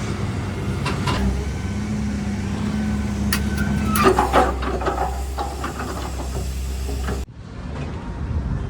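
Heavy diesel machinery engine running steadily, with a few metallic knocks and clicks around the middle. Near the end the sound cuts abruptly to a quieter recording with wind noise.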